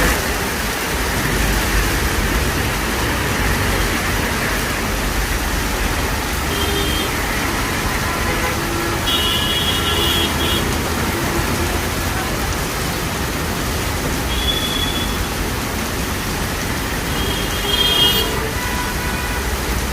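Steady rain hiss mixed with road traffic noise, with a few short high-pitched tones sounding around the middle and near the end.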